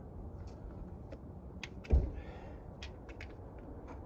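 Tools and parts being handled: a dull thump about two seconds in, with a few light clicks and ticks over a low steady hum.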